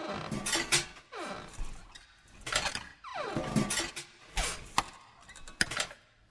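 A quiet, sparse passage of electronic background music: scattered clicks and clinks, with a few falling pitch sweeps.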